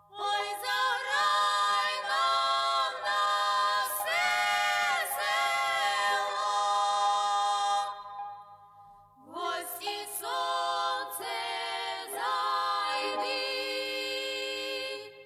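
Unaccompanied choir of high voices singing a slow melody in long held notes. One phrase runs about eight seconds, there is a brief pause, and then a second phrase follows.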